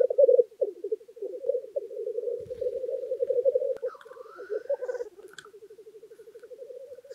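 Male black grouse rookooing on the lek: a continuous bubbling, cooing warble, growing fainter after about five seconds, with a short rising higher call about four seconds in.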